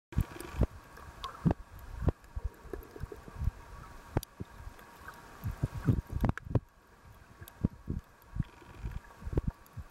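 Underwater sound picked up by a camera in a waterproof housing on a shallow reef: irregular low thuds and surges of moving water against the housing, with scattered sharp clicks.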